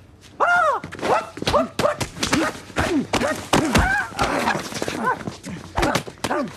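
A martial artist's high-pitched kiai yells, quick cries that rise and fall in pitch one after another, starting about half a second in, mixed with the sharp slaps and knocks of punches being thrown and blocked.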